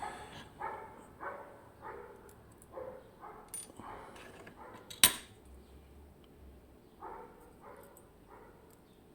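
Repeated short barks, one or two a second, pausing for a couple of seconds about midway, with a single sharp click about five seconds in as the loudest sound.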